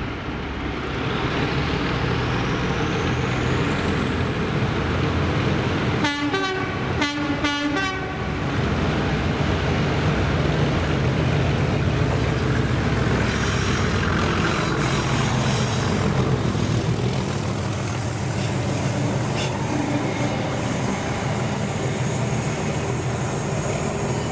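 Class 37 diesel locomotive with its English Electric V12 engine working as it drags a class 318 electric unit past, a steady heavy rumble of engine and wheels. About six seconds in it sounds two short blasts on its horn.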